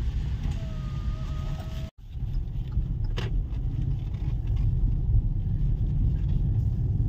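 Car driving at low speed, heard from inside the cabin: a steady low rumble of engine and tyres. A faint thin tone sounds briefly in the first two seconds, and the sound breaks off for an instant about two seconds in before the rumble resumes.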